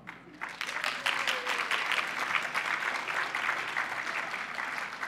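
Audience applauding. The clapping builds up within about the first second and thins out near the end.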